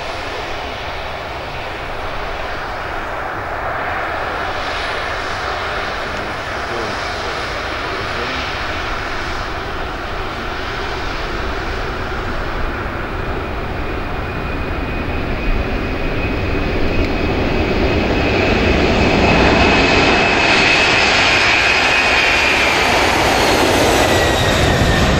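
Boeing 747-400's four turbofan engines at takeoff thrust during the takeoff roll: a continuous loud jet roar that grows louder over the last third. A high whine rises out of it near the end and dips slightly in pitch.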